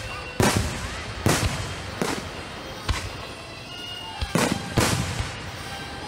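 Aerial fireworks shells bursting: about six sharp booms spaced roughly a second apart, each trailing off in a rumbling echo.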